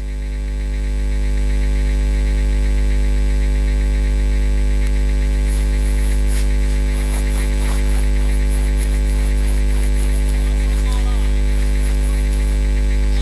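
Loud, steady electrical mains hum with a stack of harmonics on the commentary sound system's audio feed, swelling over the first second or so and then holding steady.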